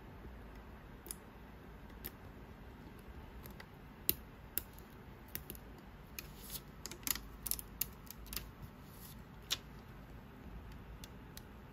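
Light, sharp clicks and taps of small repair tools and parts being handled on an iPhone X: a few single ticks, then a quick irregular run of about a dozen clicks in the middle.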